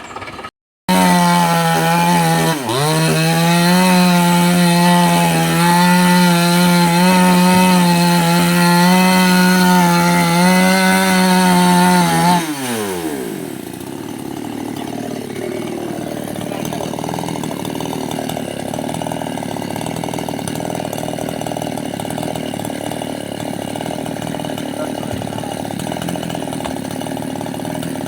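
A two-stroke chainsaw held at high revs for about twelve seconds, pitch dipping briefly once as it loads, then the throttle is released and the engine winds down quickly. After that, a quieter steady running noise continues.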